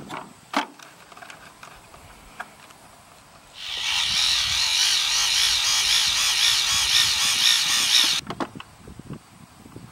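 Small electric fuel pump on a jug of glow fuel running for about four and a half seconds, pumping fuel through the line to the model plane's tank. It is a high whine whose pitch wavers, starting about three and a half seconds in and stopping abruptly.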